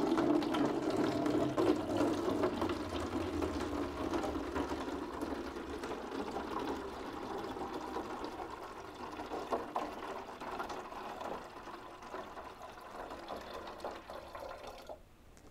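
Water poured from a beaker through a funnel into a plastic gallon jug: a steady pouring trickle that gradually grows quieter and stops near the end.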